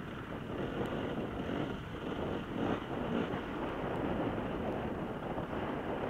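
Rough, steady wind buffeting on the microphone mixed with the rumble of off-road motorcycle engines, with no clear single engine note standing out.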